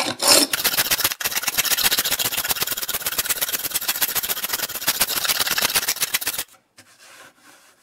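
Sharpened paint scraper rasping dried glue beads off a hardwood cutting board in a fast, even rhythm of short scrapes. It stops abruptly about six seconds in.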